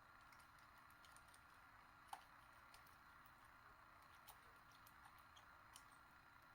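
Near silence with faint, scattered small clicks of a rotor pick working the pins inside a Bricard Chifral lock cylinder, one sharper click about two seconds in, over a steady faint hiss.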